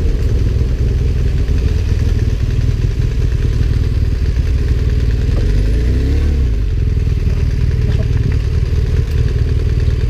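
Motorcycle engine running under way, a steady loud low rumble, with its pitch rising and falling briefly about halfway through.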